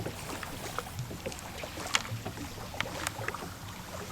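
Water lapping at the shore of a lake, with scattered small clicks and knocks, the sharpest about two and three seconds in.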